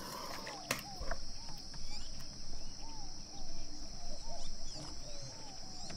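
Crisp baked pastry crust crackling as a slice of börek is broken off, over a background of short rising-and-falling animal calls repeating several times a second and a steady high hiss.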